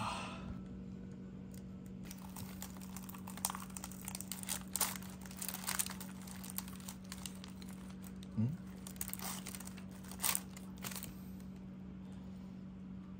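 Crispy fried chicken being torn apart by hand on a paper wrapper: irregular crackling and crunching of the breading and crinkling of the paper, over a steady low hum.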